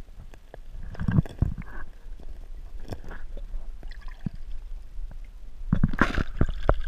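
Muffled water sound picked up by an action camera held underwater in a river: gurgling with scattered knocks and thuds from handling the housing. A burst of splashing comes near the end as the camera breaks the surface.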